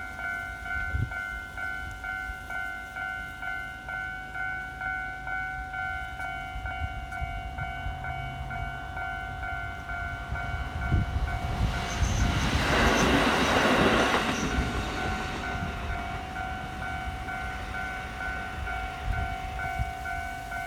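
Level-crossing warning bell ringing at about two strikes a second. A KiHa 40 series diesel railcar passes over the crossing from about 11 to 15 seconds in, a loud rush of engine and wheels with thumps over the rail joints. The bell rings on after the train has gone and stops at the very end.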